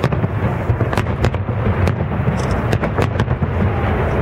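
Aerial firework shells going off: a dense, irregular run of sharp bangs and cracks over a continuous low rumble.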